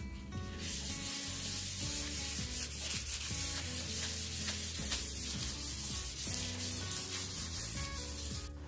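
A folded paper towel rubbed back and forth over parchment paper on a baking tray: a steady, scratchy swishing that starts about half a second in and stops just before the end.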